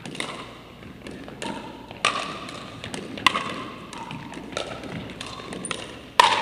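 Pickleball rally: paddles striking the hollow plastic ball and the ball bouncing on the hardwood floor, a series of sharp pocks at uneven intervals that echo in the gym, the loudest near the end.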